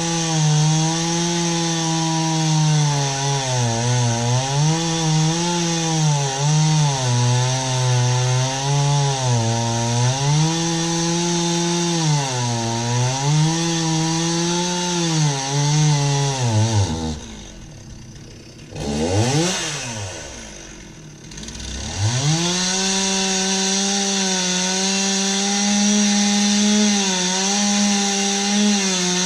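Two-stroke chainsaw cutting wood at high revs, its pitch sagging and recovering over and over as the chain loads up in the cut. About two-thirds through it drops to idle, is revved once briefly, then comes back up to full speed and runs steady.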